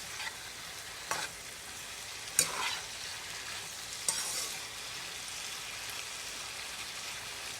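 Vegetable and potato filling sizzling steadily in a pot on the stove, with a spoon knocking against the pot about four times as it is stirred.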